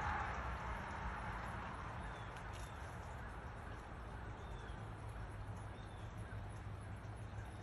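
Steady outdoor background noise with a low rumble, and a few faint, short, high chirps of a small bird now and then.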